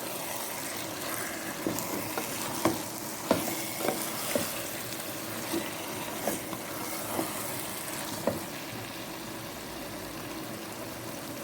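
A spoon stirring garden egg sauce in a pot on the heat, knocking and scraping against the pot at irregular intervals over a steady sizzle. The knocks stop about eight seconds in, and only the sizzle remains.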